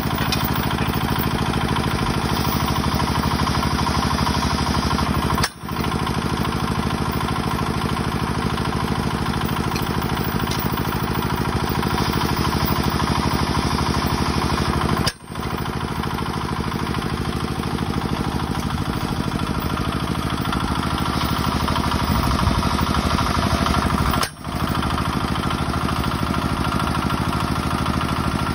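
Drill rig's engine running steadily while driving a Standard Penetration Test auto-trip hammer, a busy mechanical clatter. The sound cuts out for an instant three times.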